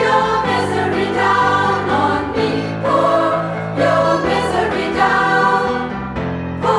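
Women's choir singing an alternative-rock song in a choral arrangement, several voice parts moving together in held chords that change every second or so.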